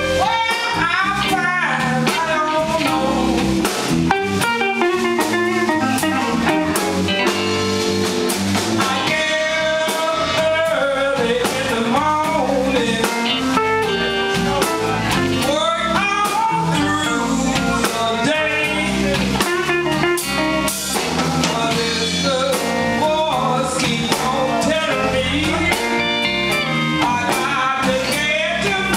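Live blues band playing: electric guitars, bass and drum kit, with a woman singing into the microphone.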